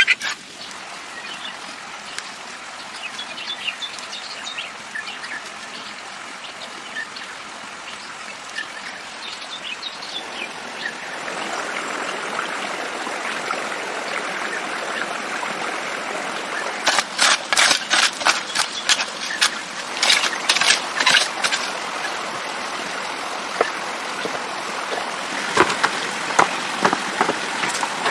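Outdoor ambience: birds chirping over a steady hiss, which grows louder about eleven seconds in. Runs of sharp clicks and knocks come in the middle and again near the end.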